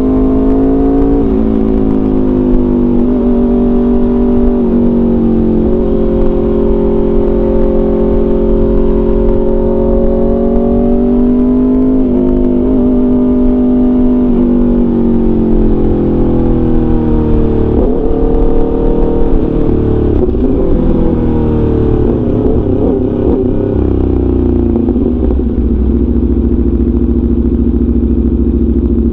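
Aprilia RSV4 RF's V4 engine through an SC-Project CRT full exhaust, heard from the rider's seat. The pitch rises and drops back with gear changes in the first six seconds, holds a steady cruise, then falls as the throttle rolls off. An uneven, wavering stretch follows before it settles to a lower steady note near the end.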